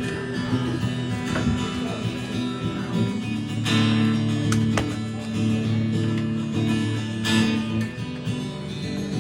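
Acoustic guitar strumming held chords as the instrumental intro to a song, with two stronger strums about three and a half and seven seconds in.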